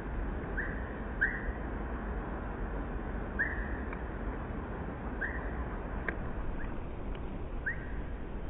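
A songbird calling: about six short, sharply rising notes at irregular intervals, over a steady low outdoor background noise.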